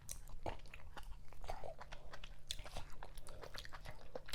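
Close-miked chewing and mouth sounds of a person eating fufu with okra vegetable soup, a string of irregular short clicks.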